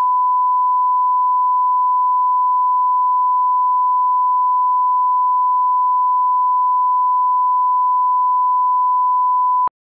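Steady 1 kHz line-up test tone, a single unchanging pure beep played with colour bars, cutting off suddenly with a faint click near the end.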